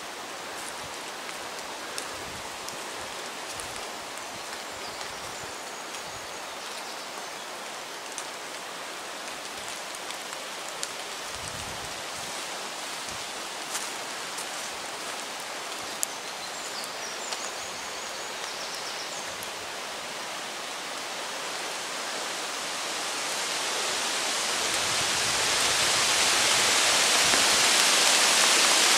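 A forest creek running, a steady rushing hiss that swells louder over the last few seconds, with a few faint ticks.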